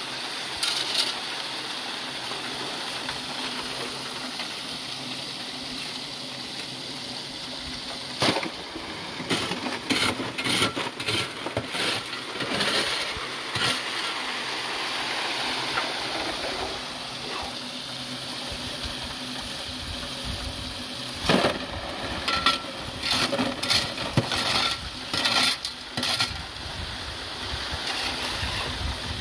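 Gravel and pebbles rattling and scraping against metal with water sloshing, as creek material is worked for gold. Sharp clicks come in clusters about a third of the way in and again in the last third.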